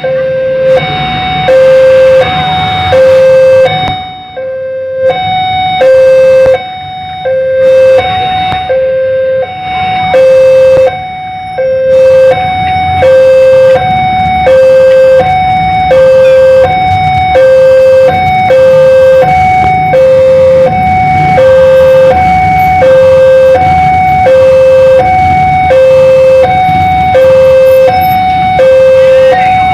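Railway level-crossing warning alarm sounding while the barrier is down for an approaching train: a loud electronic two-tone signal, low and high notes alternating evenly about once a second.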